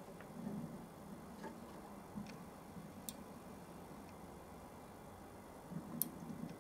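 Miniature waterproof roller-lever microswitch tripping as a peg on the moving table pushes its lever: one sharp, faint click about six seconds in, the limit switch operating. Fainter ticks come before it.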